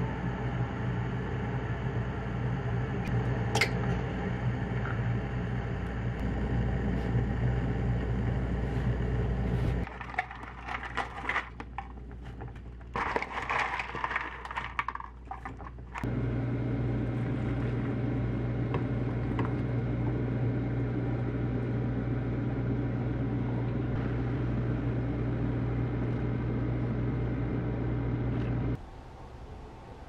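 A steady kitchen hum with a low electrical buzz, with a sharp clink a few seconds in. For several seconds in the middle the hum gives way to the clinks and clatter of a steel pot and glass dishware. The hum comes back and cuts off suddenly near the end.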